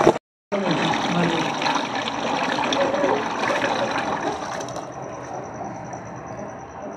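Emulsion paint running from a mixing tank's outlet valve into a bucket, a noisy liquid rush with voices behind it. It drops off about five seconds in, leaving a faint steady high whine.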